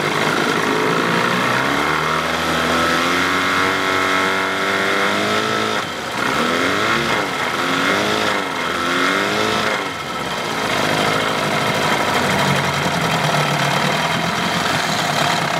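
Evinrude 15 hp two-stroke outboard motor running, its throttle opened so the revs climb over the first few seconds. It is then revved up and down about three times in quick succession before settling to a steady run.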